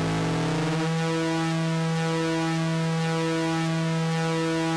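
Moog Mother-32 analog synthesizer holding a steady pulse-wave drone, its LFO turned up to audio rate to modulate the pulse width. Extra overtones glide upward during the first second as the LFO rate climbs, then settle into a steady buzzing tone with a faint slow pulsing about once a second.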